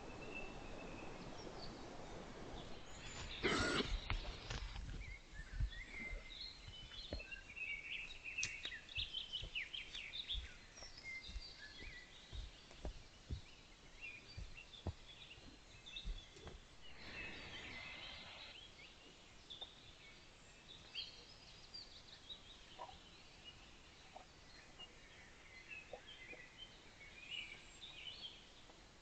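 Forest birds chirping and singing in short phrases throughout, with one loud, brief, noisy call or cough about three and a half seconds in and a weaker one around seventeen seconds.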